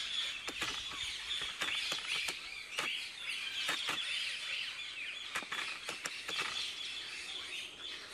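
Birds chirping and twittering, with irregular sharp clicks about twice a second.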